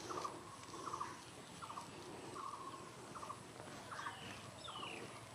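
Faint bird calls: a short rattling note repeated over and over, a little more than once a second, with a falling whistle near the end.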